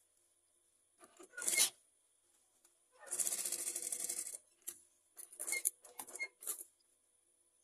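Fabric rustling and rubbing as cloth is shifted under a sewing machine's presser foot, with a short run of machine stitching about three seconds in lasting just over a second.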